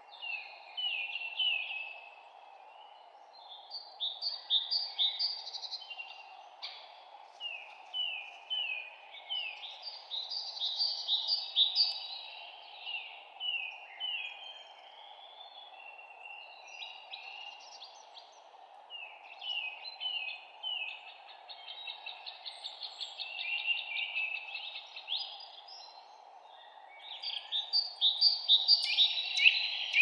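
Several songbirds singing in a spring forest, overlapping phrases of quick repeated chirps and trills, over a steady background hiss. The singing comes in waves and is busiest and loudest near the end.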